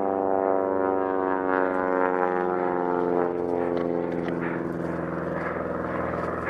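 A continuous engine drone, even and pitched, with no gunfire or speech over it.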